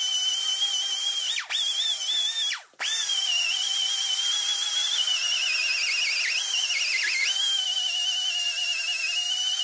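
Air-powered right-angle die grinder with a small abrasive disc grinding down welds on a steel car frame: a high, steady whine. It cuts out briefly twice in the first three seconds, and its pitch wavers and sags for a couple of seconds in the middle as the disc bears harder on the metal.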